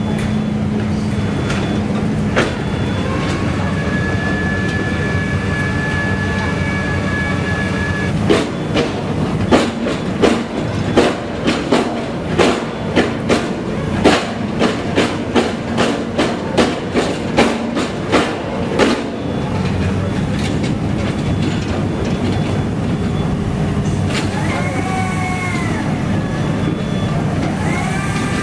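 SANY SR150C rotary drilling rig's diesel engine running steadily. In the middle comes a run of about twenty sharp metal clanks, roughly one every half second to a second. Near the end there are a few high metal squeals that rise and fall.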